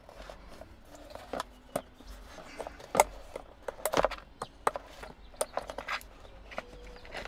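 Irregular small plastic clicks and taps of fingers working the retaining clip and wire-harness connector in a Tesla Model 3 center-screen mount, working it loose. The sharpest clicks come about three and four seconds in.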